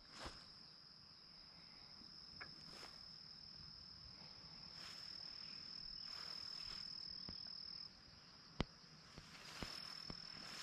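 An insect's steady high-pitched trill that stops near the end and starts again about a second and a half later. A few faint clicks, the sharpest about eight and a half seconds in.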